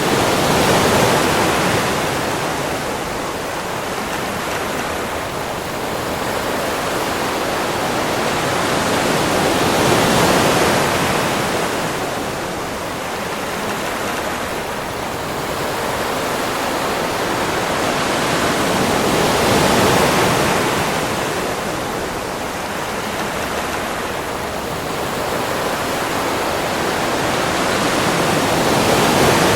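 Sea waves washing onto a beach: a steady rush of surf that swells and ebbs, cresting about every ten seconds.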